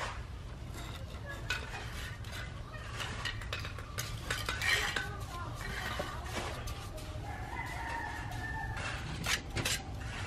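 A rooster crowing, with a long held call about two-thirds of the way through, over scattered clinks and knocks.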